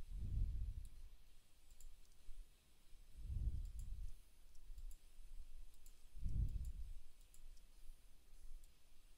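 Faint computer mouse clicks and key taps, scattered and irregular, with a soft low whoosh about every three seconds that is louder than the clicks.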